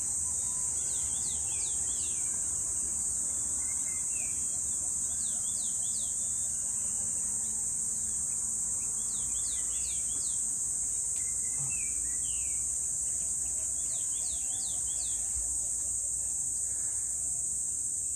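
Steady high-pitched drone of an insect chorus, the loudest sound, with a bird calling about four short phrases of three or four quick down-slurred notes, one every four to five seconds.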